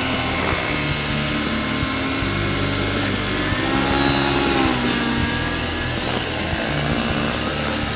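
Radio-controlled scale SA 319B Alouette III model helicopter flying low overhead, its motor and rotor running steadily, with the pitch bending about halfway through as it passes.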